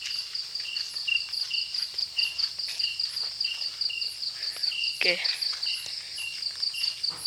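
Crickets chirping: a continuous high, fast-pulsing trill, with a second, lower chirp repeating about twice a second.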